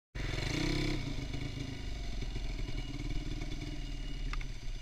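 Motorcycle engine running, a little louder in the first second, then running on steadily.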